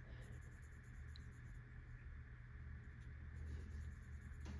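Faint scratching of a marker colouring in small boxes on a paper savings-challenge sheet, in quick repeated strokes, over a low steady hum.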